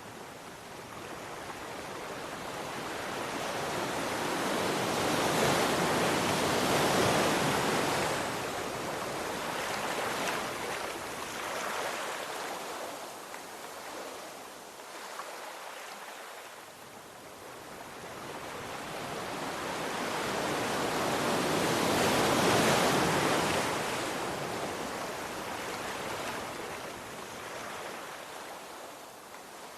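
Sea waves washing in. Two slow swells build, break and drain away, loudest about seven seconds in and again about twenty-two seconds in.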